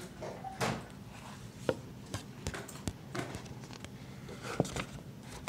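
Handling noise from turning a book page: paper rustling with a handful of light taps and knocks, scattered and irregular.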